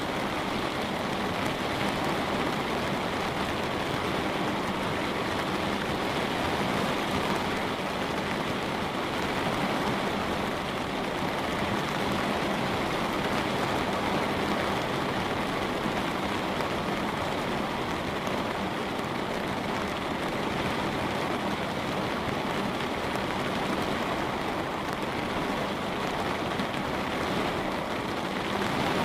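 Steady light rain falling on a window pane, an even patter with no breaks.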